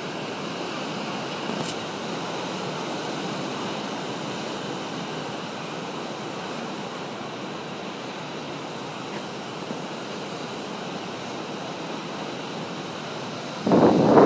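Ocean surf washing steadily over coastal rocks, with a short louder burst near the end.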